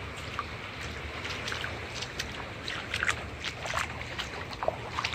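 Bare feet wading through shallow seawater over sand, with soft sloshing and small splashes at each step over a steady hiss of water and wind.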